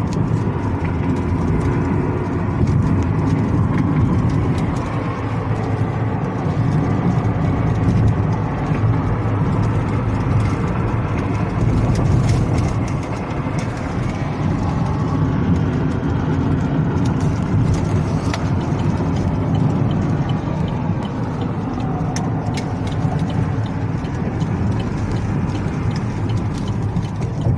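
A car driving, heard from inside the cabin: steady engine and tyre noise with a low, even road rumble.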